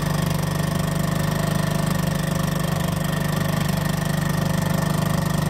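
Small outboard motor running at a steady speed, holding one even pitch with a fast, fine pulse.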